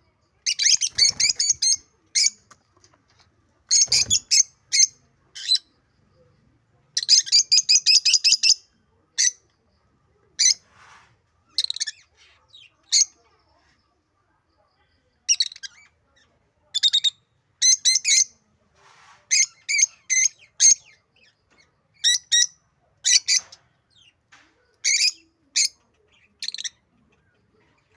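African lovebirds giving rapid, shrill chirping calls in bursts of a second or two, with short silent gaps between; later in the stretch the calls are shorter and more scattered.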